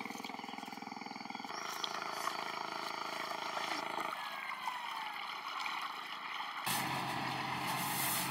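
Boat engine running steadily, a constant hum and wash that shifts abruptly in tone a few times.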